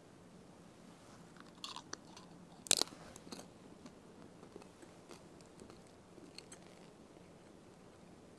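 A priest eating the communion host, a thin unleavened wafer: a sharp crunch about two and a half seconds in, with a few faint crisp clicks just before it and smaller ones for a few seconds after as it is chewed.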